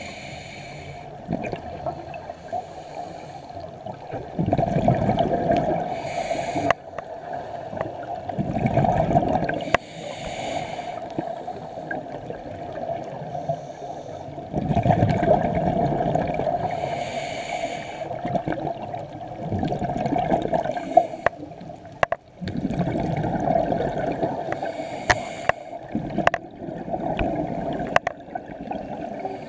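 Scuba regulator breathing underwater: a short hissing inhale, then a longer gurgling rush of exhaled bubbles. The cycle repeats about five times, roughly every five to six seconds.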